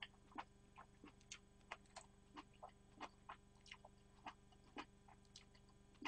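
Quiet close-miked chewing: a person eating with the mouth closed, soft wet mouth clicks coming irregularly, about three or four a second, over a faint steady electrical hum.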